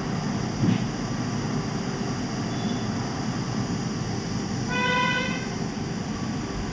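Steady air-conditioner or fan hum in a room. About five seconds in, one short pitched beep lasts under a second.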